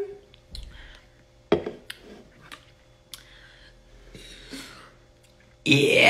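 Gulping and small clicks as a woman drinks Coke from a can. Near the end she lets out a loud burp and speaks words through it.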